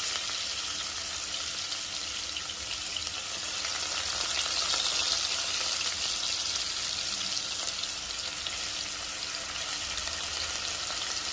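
Chopped onions sizzling as they fry in hot oil with cumin seeds and cinnamon, a steady hiss that swells a little about halfway through.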